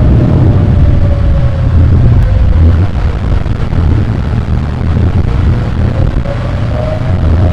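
Layered tornado storm sound effect: steady heavy rain over a deep, continuous rumble, with a tornado siren in the background slowly falling in pitch and rising again near the end.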